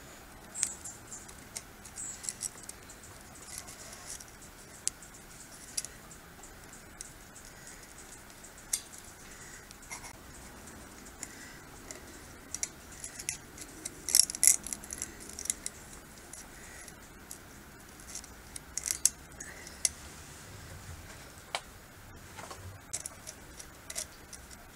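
Slip-joint pliers gripping and twisting steel tie wire around galvanized kennel posts: scattered small metallic clicks and scrapes, coming in clusters about halfway through and again a few seconds later.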